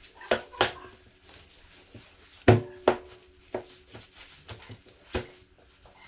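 Sharp chopping blows while butchering a calf carcass, about six in all, the loudest about two and a half seconds in, some with a short ringing tone after the strike.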